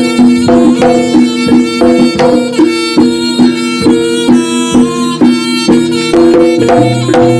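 Live Javanese jaranan music: a melody in long held notes over regular percussion strikes about twice a second.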